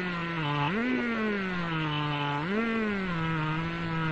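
Chainsaw ripping a log lengthwise in a homemade chainsaw-mill frame, its two-stroke engine running at high revs. The pitch dips and recovers about once a second as the cut loads the engine.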